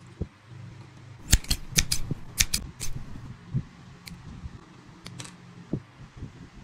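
Scissors snipping a small piece of thin white card. About seven quick, sharp snips come a little over a second in, then three more spaced snips.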